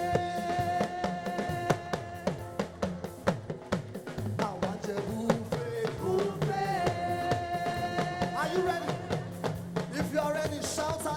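Live praise-band music: a drum kit keeping a busy beat under long held melody notes.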